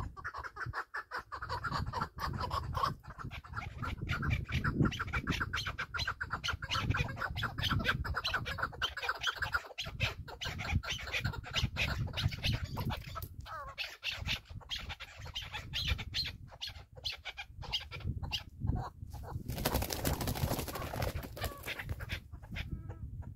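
A partridge calling in a fast run of repeated clucking notes, then in shorter scattered calls. A short rush of noise comes near the end.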